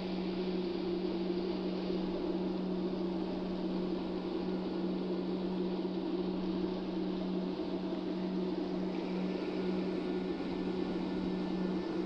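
Steady low droning hum over a faint hiss, unchanged throughout.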